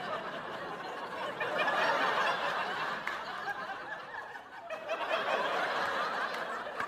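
Studio audience laughing. The laughter swells about two seconds in, eases off, then rises again in a second wave near the end.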